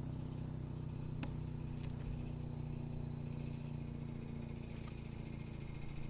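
Wood chipper's engine running steadily, with a few sharp ticks over it.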